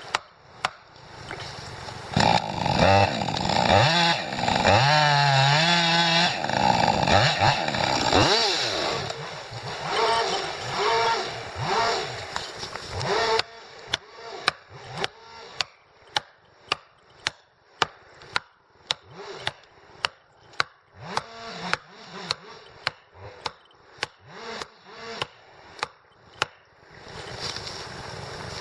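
Two-stroke chainsaw running and revving up and down through a cut, fading out about halfway. Then a long run of regular sharp knocks, about two a second.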